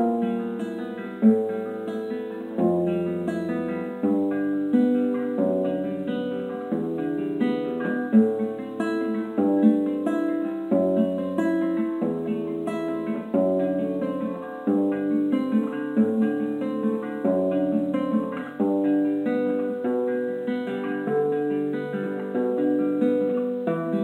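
Solo nylon-string classical guitar played fingerstyle: a steady stream of plucked notes over changing bass notes, with a few sharply accented notes.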